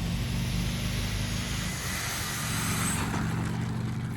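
RC plane's motor and propeller running just after touchdown, a steady hum under a broad whirring noise that eases off about three seconds in as the throttle comes back.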